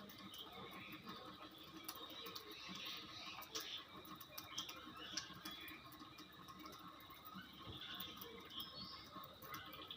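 Faint outdoor nature ambience: many small scattered chirps and ticks over a soft steady high hum.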